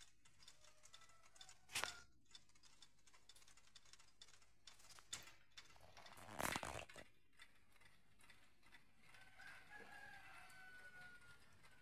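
Near silence with a few soft knocks, and a faint, drawn-out call from a distant bird in the last couple of seconds, falling slightly in pitch.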